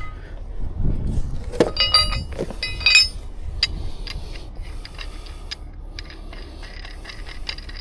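Metal rigging hardware clinking and rattling as it is handled. There are a few ringing metal clinks about two to three seconds in, then a run of lighter clicks and rattles, over a low steady hum.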